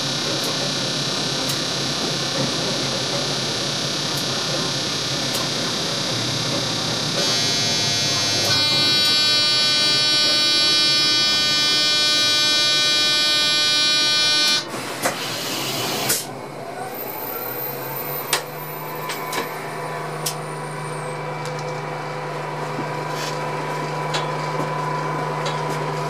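Train driver's cab: steady running noise, then a loud buzzing tone with many overtones for about six seconds that cuts off suddenly, followed by a short burst of hiss and a quieter steady low hum with a few clicks.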